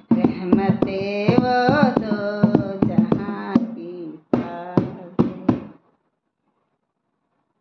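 A woman singing a devotional bhajan over hand-played dholak strokes in a steady rhythm. The singing stops about four seconds in, a few last drum strokes follow, and then the music ends.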